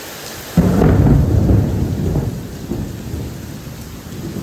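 A thunder crack about half a second in, rolling into a low rumble that fades over about two seconds, over steady heavy rain.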